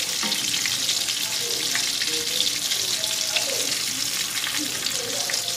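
Breaded chicken cordon bleu frying in oil in a pan: a steady sizzle dotted with small crackling pops.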